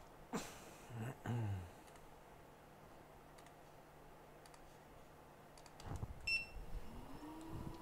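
Quiet workbench with a couple of soft low sounds early on. About six seconds in, a short electronic beep, then a small fan motor spins up with a rising whine that settles into a steady hum, typical of a hot air rework station being switched on.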